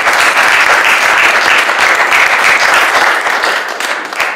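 Audience applauding loudly, the clapping dying away near the end.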